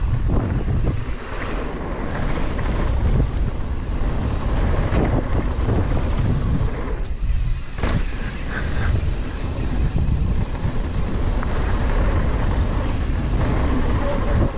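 Wind buffeting the microphone of a camera on a mountain bike riding fast downhill, over the rumble of tyres on a dirt and gravel trail. A few sharp knocks from the bike rattling over bumps cut through it.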